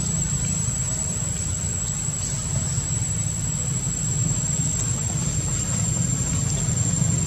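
A steady low engine-like hum that runs evenly without change, with a thin continuous high-pitched whine above it.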